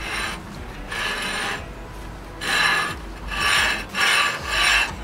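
3D-printed ABS car rim being pushed and worked onto a car's wheel hub, the plastic scraping and rasping against the metal in about five strokes. The rim's centre bore is a tight fit on the hub.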